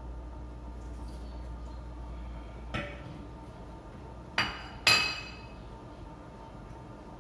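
Kitchenware clinking on the counter: one light knock, then, about a second and a half later, two sharp ringing clinks half a second apart as a small metal bowl and dishes are handled. A steady low hum runs underneath.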